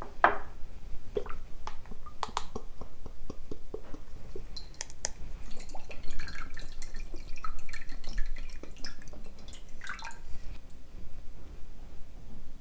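Liquid poured from a bottle into a glass bowl on a wooden cutting board: a thin stream trickling and dripping, first a clear liquid and then oil. There are scattered sharp clicks and knocks of the glass bowl and bottle throughout.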